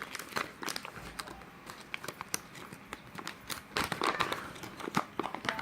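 Plastic MRE entrée pouch crinkling and crackling as it is handled and opened, with a burst of louder rustling about four seconds in.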